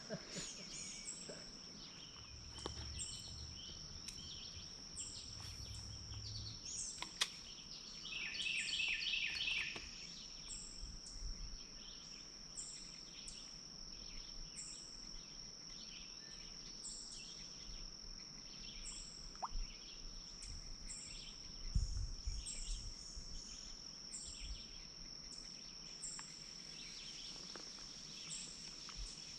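Outdoor morning ambience: a steady high insect drone runs throughout, with short high chirps repeating about once a second and a louder bird call about eight seconds in. A few soft low thumps of handling noise are also heard.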